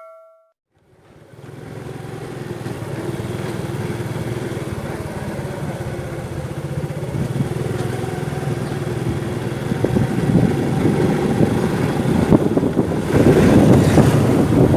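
Motorcycle engine running steadily on the move, fading in about a second in and growing louder, turning louder and noisier near the end. The tail of a ringing chime dies away at the very start.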